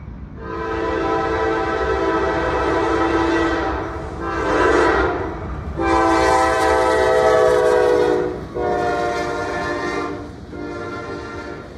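Norfolk Southern diesel locomotive's multi-tone air horn sounding for a grade crossing in five blasts, the first and third the longest, over the low rumble of the approaching train.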